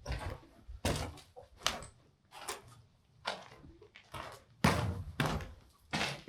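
Footsteps, a thud-like step about every second, with a heavier knock a little before the five-second mark.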